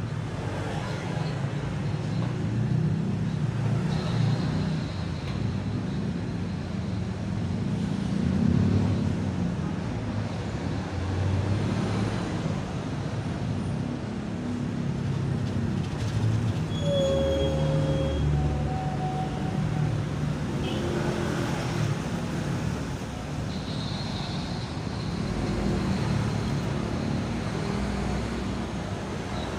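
Steady low rumble of road traffic and running engines, with a few brief pitched tones about halfway through.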